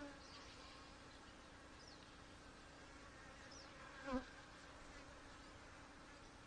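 Honey bees humming faintly and steadily on an open hive frame during an inspection. There is one brief louder note about four seconds in.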